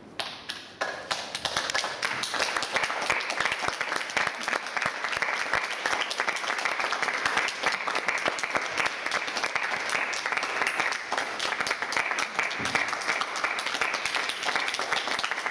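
Audience applauding: a few scattered claps at first, filling out to steady applause within a second or two.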